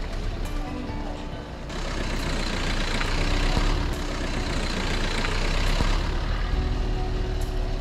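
Car running, a steady low engine rumble with road and tyre noise that grows louder about two seconds in and eases off near the end.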